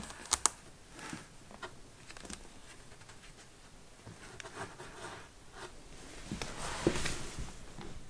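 Scratching, tapping and rustling on a cardboard box as a cat plays inside it and a feather toy is worked at its holes. There are two sharp clicks within the first half second, and a louder rustle comes about seven seconds in.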